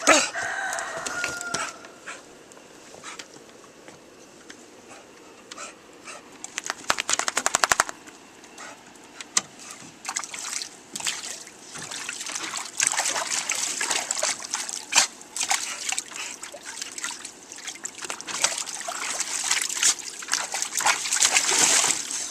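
An American Staffordshire terrier pawing at the water in a plastic wading pool, making repeated irregular splashes that come thicker and louder in the second half. A short high-pitched call sounds right at the start, and a fast run of taps, about ten a second, comes about a third of the way in.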